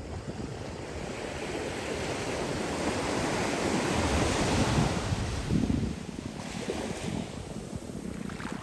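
Calm ocean surf: a small wave breaking and washing up the beach, swelling to a peak about halfway through and then easing off. Wind buffets the microphone with a low rumble.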